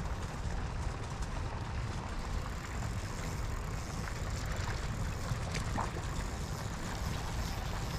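Steady outdoor ambient noise with a low rumble, as of wind on the microphone, and a couple of faint clicks a little over halfway through.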